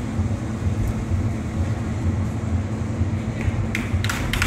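Steady low hum of a large indoor competition hall. Near the end, a quick run of sharp clicks begins.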